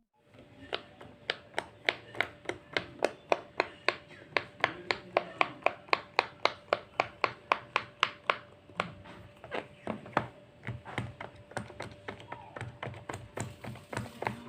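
Bubbles of a silicone pop-it fidget toy being pressed one after another, a quick even run of sharp pops at about four a second, then softer, more irregular pops for the last several seconds.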